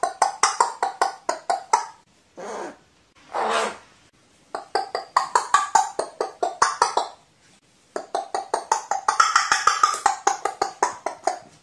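Carrion crow giving rapid runs of short 'wa-wa' notes, roughly six a second, in three bursts, with two longer single calls between the first and second runs.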